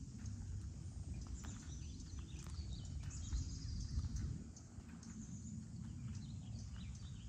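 Footsteps on asphalt, a few scattered steps, over a steady low outdoor rumble, with birds chirping.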